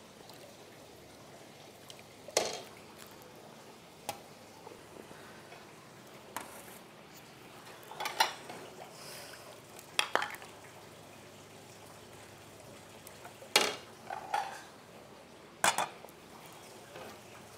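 Dishes and metal utensils clinking and clattering now and then, about ten separate knocks at uneven intervals.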